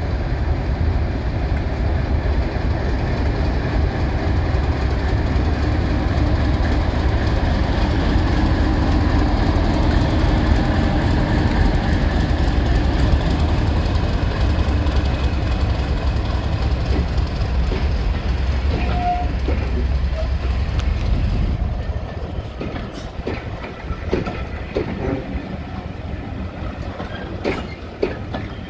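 Class 31 diesel locomotive's English Electric V12 engine running loudly and steadily as it pulls its train past. About 22 s in the engine sound fades, and the passing coaches' wheels give scattered clicks over the rail joints.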